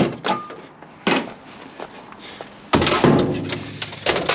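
Mostly plastic rubbish being rummaged through by hand: a sharp knock at the start, another about a second in, then a louder stretch of clattering and rustling around three seconds in.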